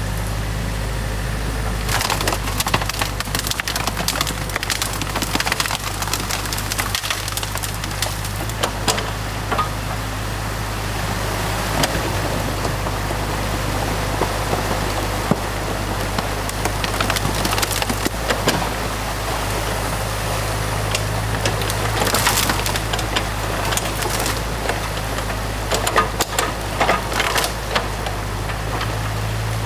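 Sticks and branches of a beaver dam cracking and snapping as a New Holland mini excavator's bucket tears the dam apart, over the steady hum of the excavator's diesel engine. The cracking comes in clusters, heaviest after a couple of seconds and again near the end.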